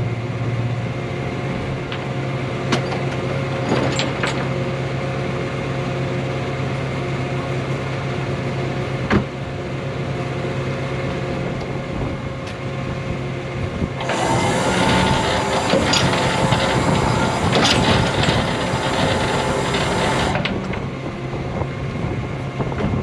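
Vehicle engine running steadily, with a few light clicks. A louder rushing noise cuts in about two-thirds of the way through, lasts some six seconds, and stops abruptly.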